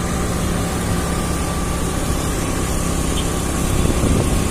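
A motor vehicle running steadily along a rain-wet road: a continuous engine hum under the hiss and rumble of tyres and rushing air.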